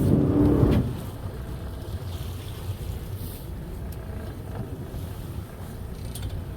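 Steady low rumble on board a fishing boat at sea, with a louder rush of noise in the first second.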